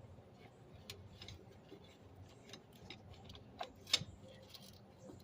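Faint metallic clicks and ticks from a C-clamp being worked against an old brake pad to push a brake caliper piston back into its bore, with one sharper click about four seconds in.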